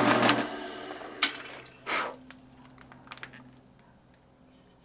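Electric drill motor switching off and winding down, followed by two light metallic clinks, about a second and two seconds in.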